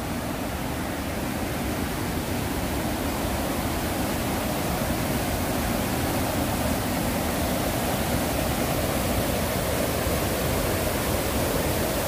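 Mountain stream in spate after heavy rain, its water rushing over rocks in a steady, even rush that grows gradually louder.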